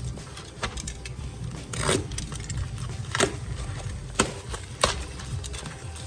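Cardboard packages being unpacked and rocks handled: rustling, with a longer tearing or crinkling sound about two seconds in and several sharp knocks spread through.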